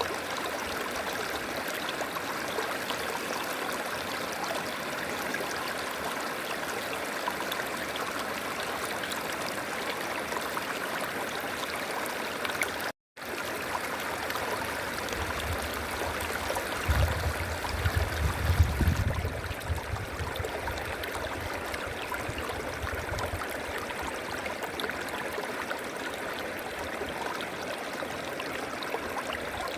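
River water flowing and gurgling, a steady rushing. A little under halfway the sound drops out for an instant, then a low rumble swells for several seconds before fading.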